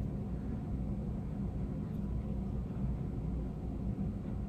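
Steady low hum of background room noise, with no distinct events.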